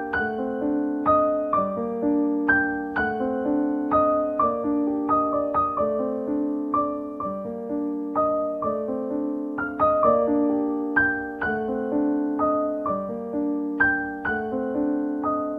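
Background piano music: a gentle melody of plucked-sounding, decaying notes at an even pace.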